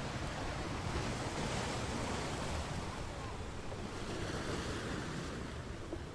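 Ocean waves breaking and washing on a shore, a steady surf noise that swells about a second in and eases near the end.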